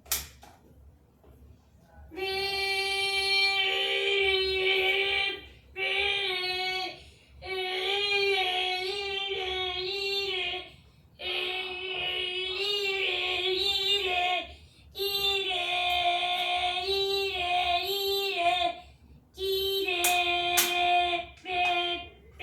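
A child's voice imitating a fire alarm: long held tones that waver and slide slightly, sung in phrases of one to four seconds with short breaks, beginning about two seconds in after a brief click.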